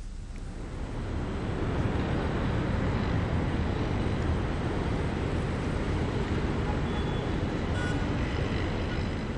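Steady distant city traffic noise, a hum and rush that swells up about a second in and holds, with a few faint high tones near the end.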